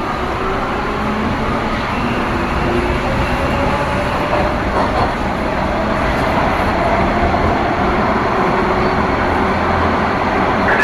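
Subway train ride heard from inside the car: a steady rumble and rail noise, with a faint whine that slowly drifts in pitch.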